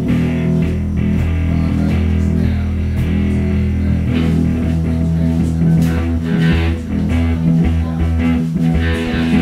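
Electric guitar and bass guitar playing a loud rock riff together, the bass holding long low notes, with only a few scattered drum hits.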